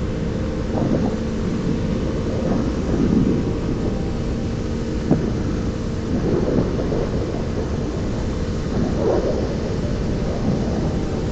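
Wind buffeting the microphone of a dual-sport dirt bike at highway speed, a constant low rumble with irregular louder gusts. A steady engine hum runs faintly underneath.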